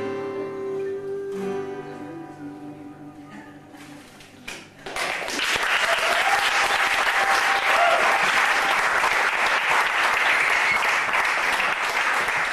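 Two acoustic guitars play closing notes that ring out and fade. About five seconds in, the audience breaks into loud applause.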